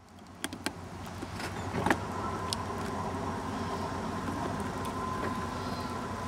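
Railroad grade-crossing warning bell ringing with a steady tone as the crossing activates for an approaching train. A low steady rumble sits under it, with a few sharp clicks in the first two seconds.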